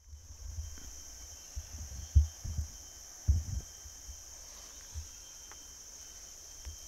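Steady high-pitched chirring of forest insects, with a few dull low thumps, the loudest about two and three seconds in.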